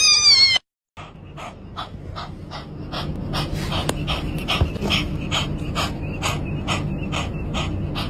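A fluffy cat's brief high yowl with falling pitch, cut off abruptly; then a kitten panting rapidly through its open mouth from the heat, about three quick breaths a second, over a low steady hum.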